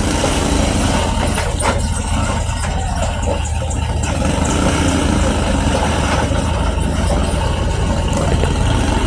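A vehicle engine running steadily at low revs, with a constant low hum and general road noise.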